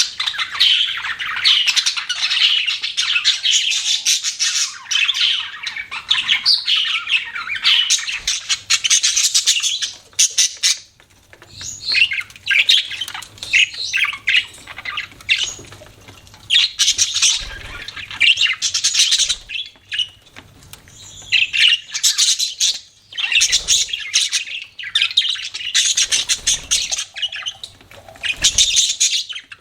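Budgerigars chirping and chattering with squawky calls: a dense, continuous chatter for about the first ten seconds, then bursts of chirps broken by short pauses.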